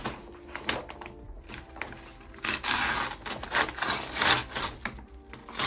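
Stiff brown paper packaging rustling and crinkling as a parcel is handled and turned over, in uneven bursts that are loudest in the middle.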